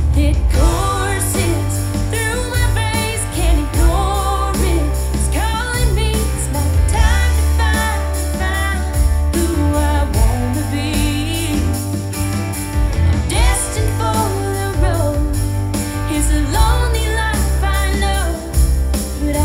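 A song with a singing voice, heavy bass and a steady high percussive beat, played through a JBL EON ONE MKII portable column PA speaker (eight 2-inch tweeters in a C-shaped column and a 10-inch bass-reflex subwoofer) and recorded through an RTA measurement microphone.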